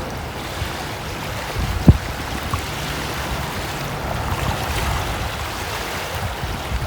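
Steady rushing noise of breeze on the microphone and river water along the shore, with one sharp thump about two seconds in.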